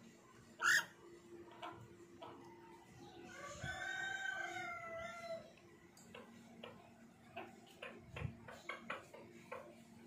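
Rose-ringed parakeet giving a short, sharp squawk about a second in, the loudest sound, then a drawn-out call of about two seconds with a steady pitch that dips at the end. After that comes a run of light clicks and taps.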